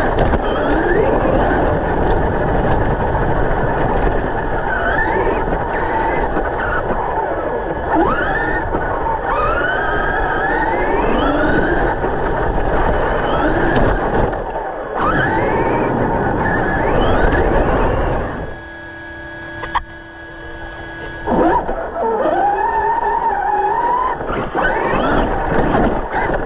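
Electric RC monster truck motors whining up in pitch again and again as the trucks accelerate, over a loud rushing noise. The noise drops away for a couple of seconds after the middle, leaving a faint steady hum and one sharp click, then the revving picks up again.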